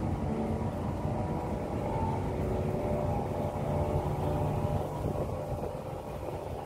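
A steady low machine hum with several held tones over a rumble, unchanging throughout.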